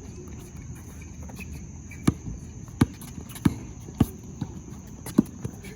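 Basketball being dribbled on a hard court: a run of sharp bounces starting about two seconds in, roughly one every half-second to second, over a steady high background whine.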